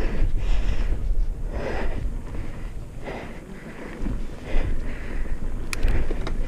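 Wind buffeting the microphone over the rumble of a mountain bike rolling fast down a dirt singletrack, swelling and easing unevenly, with one sharp click near the end.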